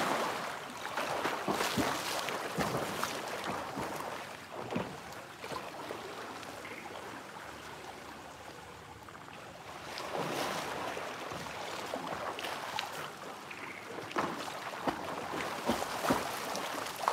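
A swimmer splashing through pool water: loud churning splashes at the start, quieter strokes in the middle, and splashing again from about ten seconds in.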